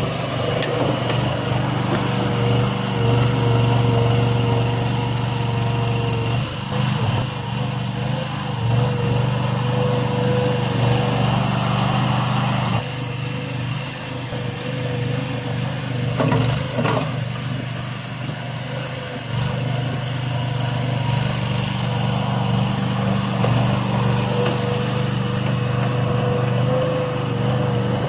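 Skid steer loader running, its engine note steady with a constant higher whine above it. The engine eases off about halfway through and picks up again a few seconds later.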